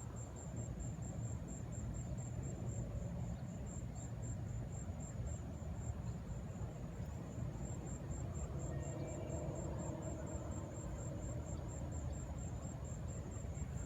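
Insects chirping in a fast, even high-pitched pulse, several chirps a second, over a steady low rumble.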